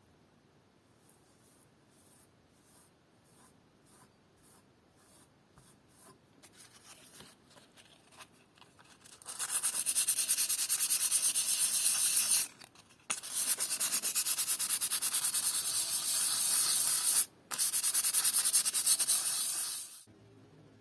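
Abrasive sanding: faint rubbing strokes about twice a second at first, then from about nine seconds in a loud, fast, continuous sanding with two short pauses, stopping a second before the end.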